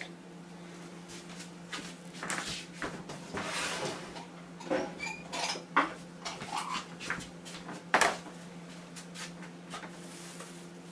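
Ceramic bowls clinking and knocking as they are handled and set down on the counter and a kitchen scale: a scatter of knocks, the loudest about eight seconds in, over a steady low hum.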